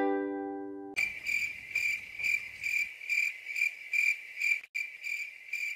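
The last ukulele chord of the background music dies away. Then, about a second in, a cricket-chirping sound effect starts suddenly: a high chirp repeating evenly a little over twice a second.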